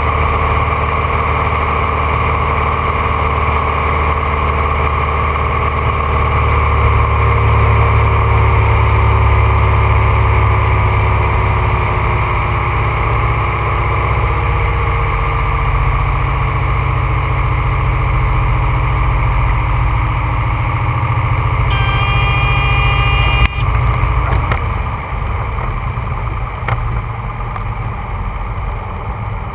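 Rockwell Commander 114's six-cylinder Lycoming IO-540 engine and propeller heard from inside the cockpit on a landing, a steady drone whose pitch slowly falls as power comes back. About two-thirds through, a high tone sounds for a couple of seconds, then a single knock, and the engine noise drops to a quieter idle on the landing roll.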